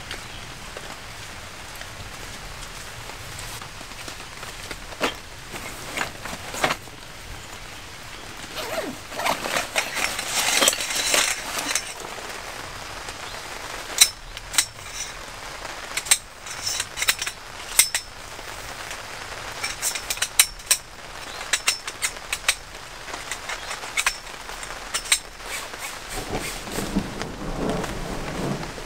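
Steady rain falling, with repeated sharp clicks and knocks from metal poles being fitted together, and a stretch of rustling handling noise about ten seconds in.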